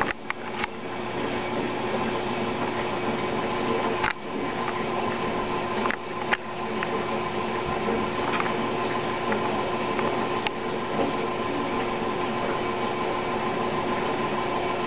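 Steady mechanical hum of a small motor, with a couple of even tones, broken now and then by a few sharp clicks.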